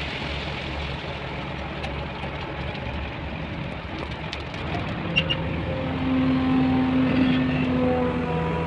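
Heavy construction vehicle engine running with a steady low rumble; about six seconds in, a steady humming tone joins as the engine note rises and holds.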